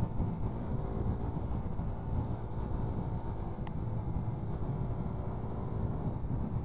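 Motorcycle engine running at road speed, heard from the rider's own bike, with wind rushing over the microphone.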